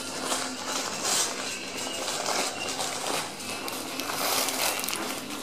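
Dandie Dinmont Terrier puppies rustling and tearing a sheet of crumpled newspaper: a continuous papery crackle, with louder rips about a second in and again later.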